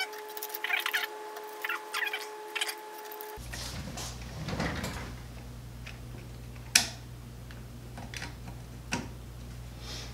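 Small clicks and taps of a screwdriver and plastic parts being handled while the hotend shroud's screws are taken out and a printed probe mount is fitted, with one sharper click a little after halfway. A steady two-tone hum runs under it and changes abruptly about a third of the way in to a lower hum.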